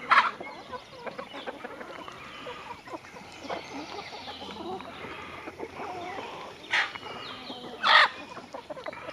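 A flock of free-ranging chickens clucking softly and steadily. Three short, loud, sharp calls stand out: right at the start, about seven seconds in, and near the end.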